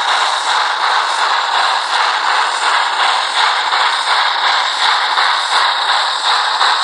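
Sound decoder of an H0-scale Rivarossi BR 96 Mallet steam locomotive model playing steady steam chuffing through its small onboard loudspeaker, thin and without bass, as the model runs along the track.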